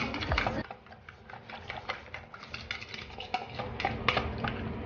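Metal spoon beating eggs in a bowl: a quick, uneven run of clinks and taps as the spoon strikes the bowl's sides, louder for a moment near the end.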